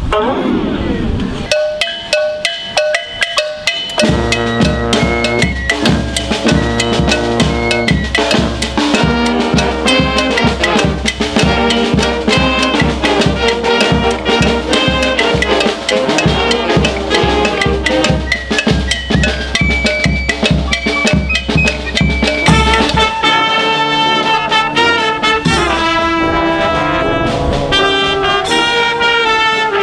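Street wind band playing: a brief banjo-mandolin and flute passage gives way to saxophones, trumpets and flute over a steady drum beat from about four seconds in. About two-thirds of the way through, the drum beat drops out as a new tune starts, led by brass and saxophones.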